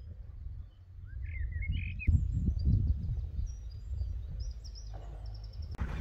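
Wind rumbling on the microphone outdoors while small birds chirp, with short calls about a second in and scattered higher twitters after. Near the end it switches to the steady hum of a boat's motor with water noise.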